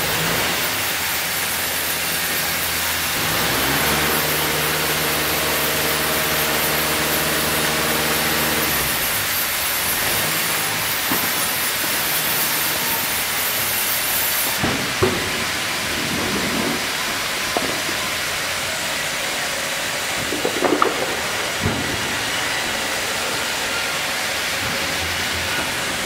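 FİMAKSAN Fi.120 tandem band saw line running, its blades cutting a log while roller conveyors carry the wood, as a loud steady hiss of machinery. A motor hum comes in a few seconds in and stops about six seconds later, and several knocks of wood against the rollers come in the second half.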